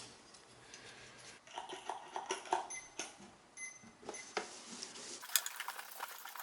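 Light, irregular clicks and metal clinks as the Amano punch clock's removed print carriage is handled.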